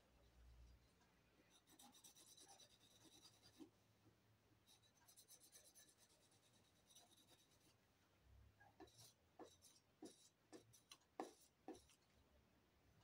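Faint scratchy rubbing in two spells of quick strokes, then a handful of light knocks and clicks near the end.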